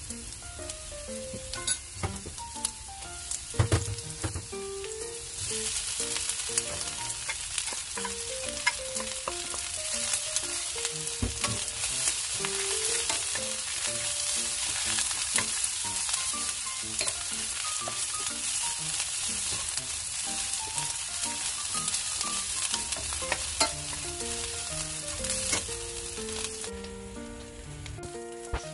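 Sesame oil sizzling with ginger slices in a stainless steel pan over low heat. About five seconds in the sizzle grows louder as shiitake and lion's mane mushrooms are stir-fried in it, with a wooden spatula scraping and clicking against the pan. Soft background music runs underneath.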